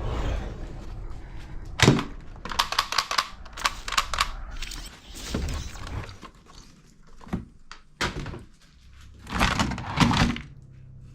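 Toy guns clicking and knocking: a string of sharp plastic clicks and thuds, with a strong knock about two seconds in and a loud cluster near the end.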